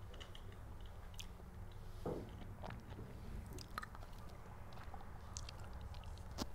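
A boccette ball rolled by hand across a billiard table, with a few soft knocks and clicks as it runs and comes off the cushions, over a low room hum.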